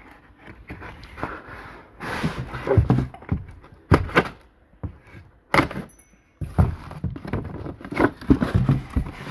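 A cardboard box is handled and its taped flap worked open: scuffing and scraping of cardboard, broken by several sharp knocks and thuds. The loudest come about four, five and a half and eight seconds in.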